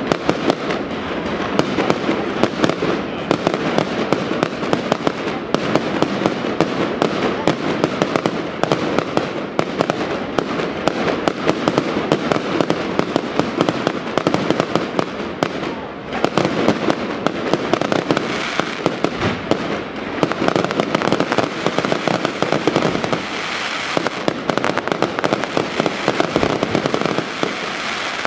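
Aerial fireworks bursting in a dense, unbroken run of bangs and crackles.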